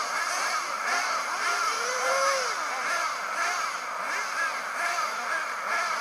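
Several radio-controlled racing buggies' small engines revving on the starting grid, many short overlapping rising and falling whines.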